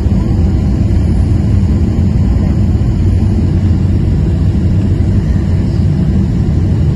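Steady low rumble of an airliner's engines and rushing air, heard from inside the passenger cabin on final approach over the runway threshold.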